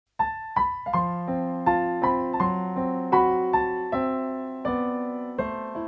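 Piano music: a slow melody of notes and chords struck one after another, each ringing and fading before the next, starting just after a brief silence.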